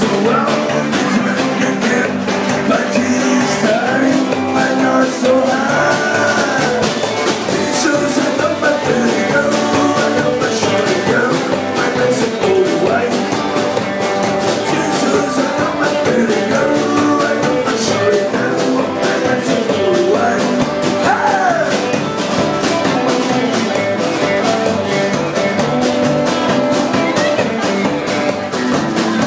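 Live band playing rock and roll on guitar, upright double bass and drum kit, steady and loud throughout.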